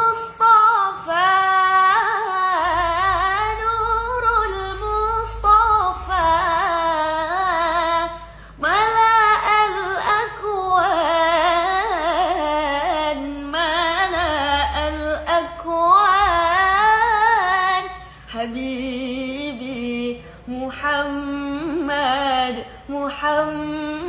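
A young woman singing an Arabic sholawat (Islamic devotional song) solo. Her voice carries a long, ornamented melody in phrases, with short breaks for breath about a third and three quarters of the way through.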